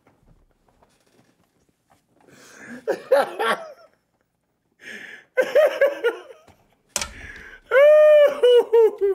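A man laughing in bursts after a couple of quiet seconds. The laughter builds into loud, high-pitched, drawn-out shrieks near the end. A sharp click comes about seven seconds in.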